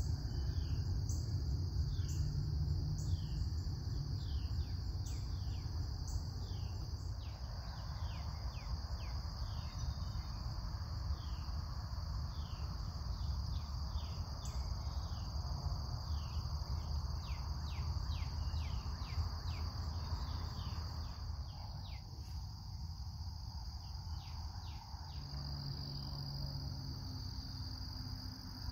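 Morning insect chorus, a steady high-pitched trill, with a bird calling in quick repeated downward chirps through the middle, over a low rumble.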